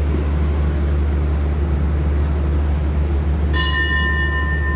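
Low, steady hum of the standing passenger train. About three and a half seconds in, a metal bell is struck and rings on with a clear tone, the station bell rung in Thailand to signal a train's departure.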